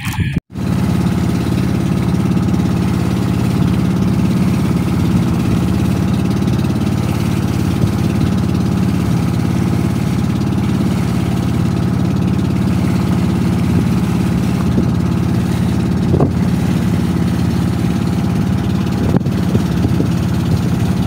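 Outrigger fishing boat's engine idling steadily.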